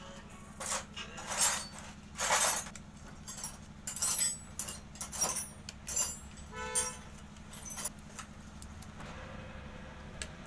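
Metal hand tools and bolts clinking and scraping against a Bajaj Maxima Z engine's crankcase cover as its bolts are fitted: a run of short, irregular clinks and rattles, a few ringing briefly, quieter from about eight seconds in, over a steady low hum.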